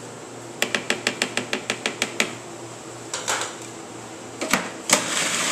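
A quick run of about a dozen sharp taps against the food processor's plastic bowl, then a few knocks as its lid goes on. Near the end the food processor's motor starts and runs steadily, blending black bean dip.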